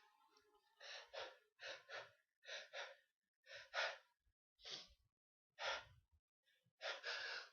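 A person breathing in short, faint gasps between sneezes, about once a second and often in pairs, with a longer breath near the end: the catching breaths of a sneezing fit.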